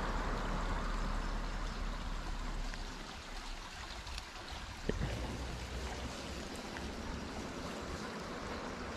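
Small woodland stream trickling and babbling steadily, with a single short knock about five seconds in.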